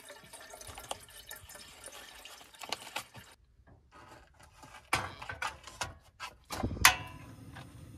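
Water running from a dispenser spout into a brass kettle, filling it, for about three seconds. After a short pause come several clunks and knocks as the kettle is set on a portable butane stove, then, near the end, the loudest sound: a sharp click with a short rush, the burner being lit.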